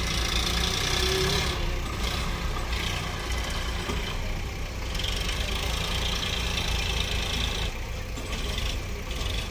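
Diesel engines of a JCB 3DX backhoe loader and farm tractors running steadily, with a higher hiss that rises over them twice.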